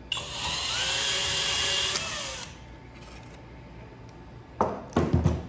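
Drill spinning a WS22 snap stripping tool around aluminum PV feeder cable, cutting away the insulation with a steady whir for about two and a half seconds, then winding down. A few short knocks follow near the end.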